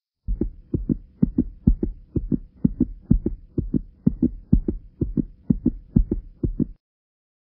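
Heartbeat sound effect: a fast lub-dub of paired low thumps, about two beats a second, that cuts off suddenly.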